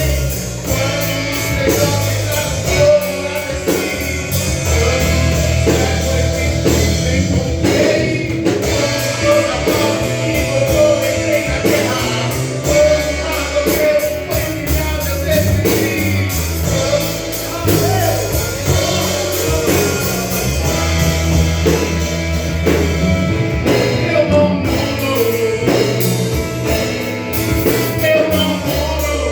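A band playing a rock-style worship song, with singing over a drum kit, bass and guitar.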